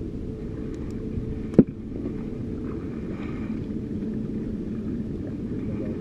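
Motorized banca's engine running steadily, with one sharp knock about a second and a half in.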